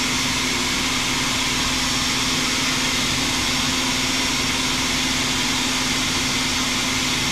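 Steady hum of an idle CNC milling machine with its servo power off: cooling fans and electrical hum, with a constant low tone and no axis or spindle movement.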